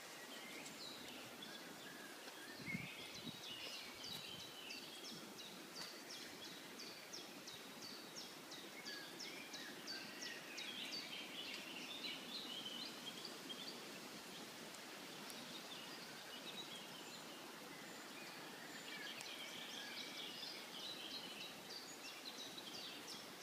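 Birds singing: many short, high chirps and trills over a faint, steady background hiss.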